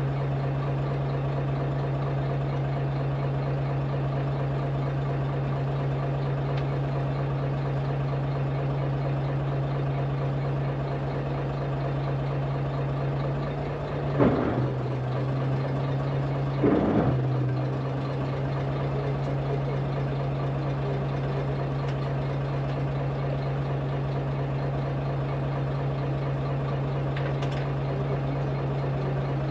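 A charter fishing boat's engine idling steadily, with two brief louder changes in its note about halfway through.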